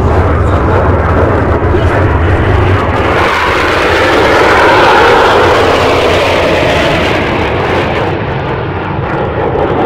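Jet noise from Frecce Tricolori Aermacchi MB-339 trainers flying past, a loud roar that swells to a peak about five seconds in and then eases off.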